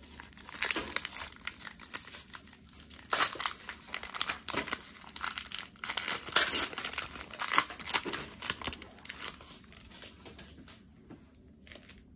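A Pokémon trading card booster pack's foil wrapper crinkling and tearing as it is opened by hand. It is a dense run of sharp crackles that thins out and goes quieter near the end.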